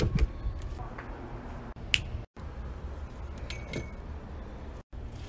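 Light knocks and clicks of a wooden folding stool and broom handles being handled, over a low steady hum. There is a louder knock at the start, and the sound drops out briefly twice.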